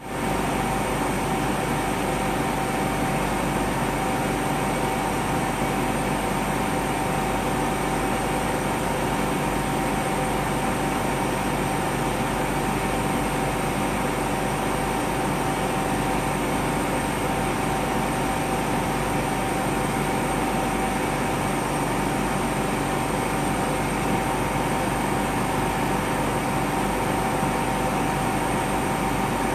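Desktop laser cutter running as it cuts a lattice of slits into thin plywood: a steady machine hum with a constant high whine.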